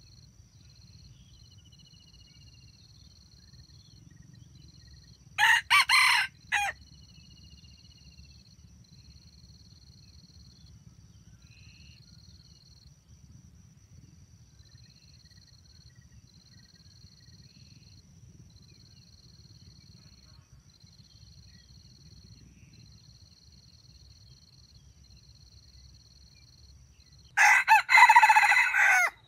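Red junglefowl rooster crowing twice in a stammering voice: a short, broken crow about five seconds in, and a longer crow near the end.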